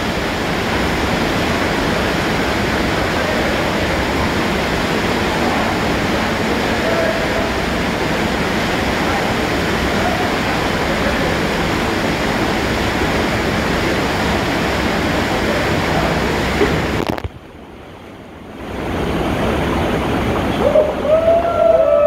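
Underground cave waterfall pouring into a pool, a loud steady rush of water. About seventeen seconds in it drops away suddenly for a second or so and then comes back, with a person's shouts near the end.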